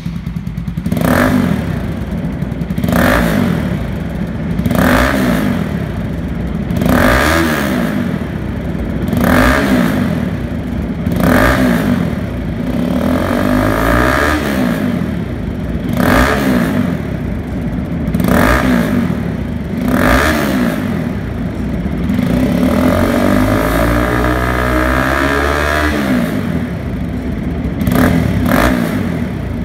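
Bajaj Pulsar NS200's single-cylinder engine idling and being revved through an Akrapovic slip-on exhaust with its dB killer fitted: short throttle blips about every two seconds, then one longer rev held for a few seconds that falls back to idle.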